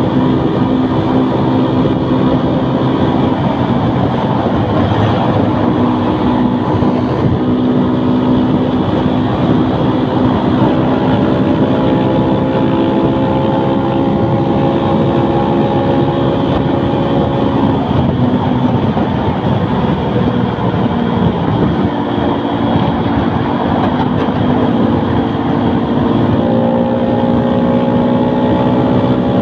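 Small single-cylinder motorcycle engine, bored out with a 56 mm piston, stock valves and a racing ECU, running hard under load. Its pitch climbs slowly, falls back about two-thirds of the way through, then climbs again near the end, over a steady rushing noise.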